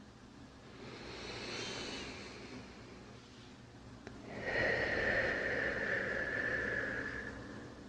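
Slow, deep human breathing close to the microphone: a soft, hissy breath in about a second in, then a longer, louder breath out from about halfway through.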